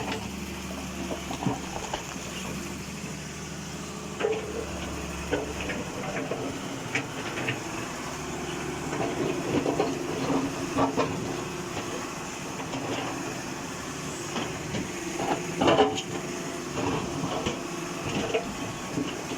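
Heavy excavator diesel engine running steadily, with irregular metallic knocks and clanks from the machines at work, the loudest about sixteen seconds in.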